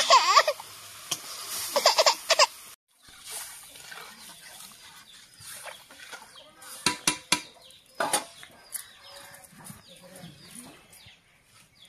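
Chickens clucking, loudest in the first couple of seconds; later a few sharp clinks, fitting a steel ladle knocking against the kadhai as the curry is stirred.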